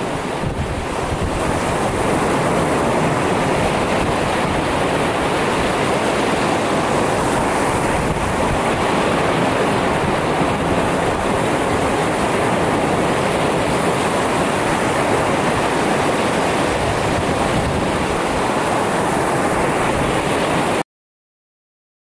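Lake Erie surf: a steady wash of waves breaking and running up onto the shore, which cuts off suddenly near the end.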